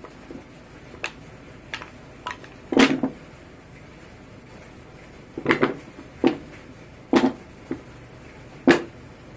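Small wooden triangle offcuts being picked up, set down and shuffled on a wooden saw-table top: a series of irregular wooden knocks and clacks, about nine in all, the loudest about three seconds in.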